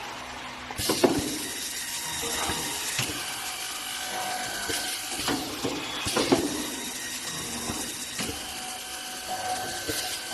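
BHM ALFA 3 DW automatic boring and dowel-insertion machine at work: a steady mechanical whine and hum, broken by a sharp knock every second or two.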